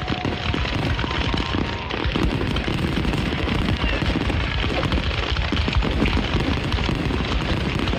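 Fireworks going off in a dense, continuous barrage of rapid bangs and crackles.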